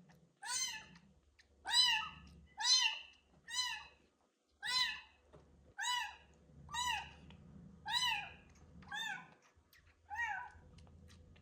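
A young kitten meowing loudly and insistently, about ten meows roughly one a second, each rising then falling in pitch.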